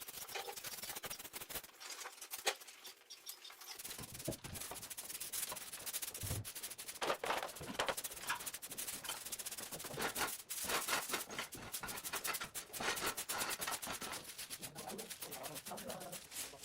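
Moss being scraped off a hard surface with a hand tool: quick, rough, irregular scraping strokes.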